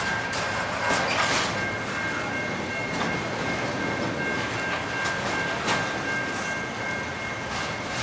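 Intermodal freight train's double-stack and trailer cars rolling past: a steady rumble of wheels on rail with scattered clicks as wheels cross rail joints, and a steady high-pitched whine running through.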